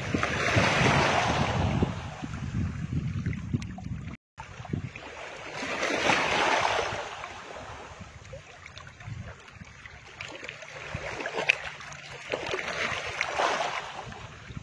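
Outdoor wind blowing across the microphone in gusts, with water washing below. It swells and fades three times and cuts out for a moment about four seconds in.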